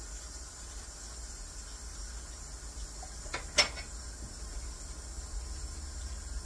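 Steady low hum with one sharp click about three and a half seconds in.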